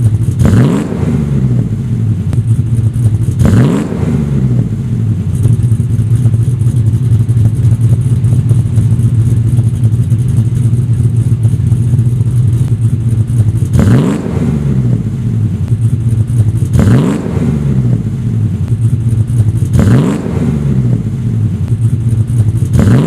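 Supercharged 6.2-litre V8 of a Yenko SC Silverado pickup idling with a steady, deep exhaust note, blipped in short throttle revs that rise and fall back to idle: twice in the first few seconds, then three more times spaced about three seconds apart after a long stretch of idle.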